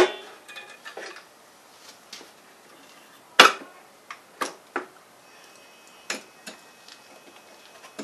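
Sharp metallic clicks and clinks of hand tools and small metal parts working the throttle linkage of a lawn mower carburetor. There are a handful of separate clicks, and the loudest comes about three and a half seconds in.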